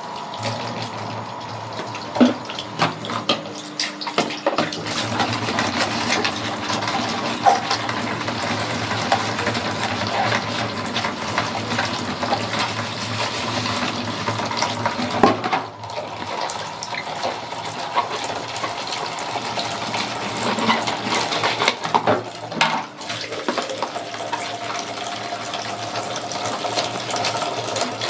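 Water running from a tap into a sink while dishes are washed, with scattered clinks and knocks of dishes being handled. The running water briefly drops away twice, about two-thirds of the way in and again a few seconds later.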